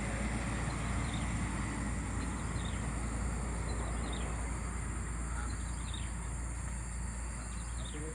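Faint, short high chirps of small birds every second or so over a steady low rumble of wind or handling noise on the microphone.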